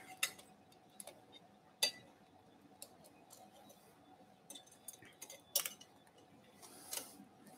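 Steel surgical instruments clinking and clicking as they are handled and set against the retractors: a handful of light, scattered metallic ticks, the sharpest about two seconds in and around five and a half seconds, over a faint steady tone.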